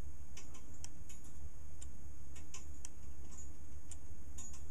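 Brass clock movement ticking and clicking as a hand-swung pendulum pushes its gear train back and forth through a copper wire link: light, irregular clicks, several a second, over a steady low hum.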